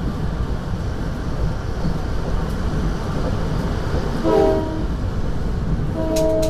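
A train rumbling along at speed, heard from inside a commuter coach. A multi-chime Nathan K5LA air horn on the cab car gives a short blast about four seconds in, then a longer blast about six seconds in.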